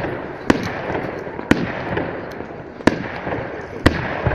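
A fireworks display going off: four sharp bangs about a second apart, over a continuous din of noise between them.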